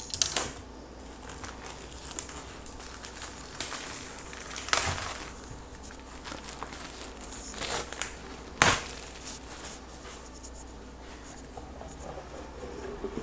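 Plastic wrapping crinkling and tearing as a hardcover book box set is unwrapped and handled, with three sharp knocks of the box and books.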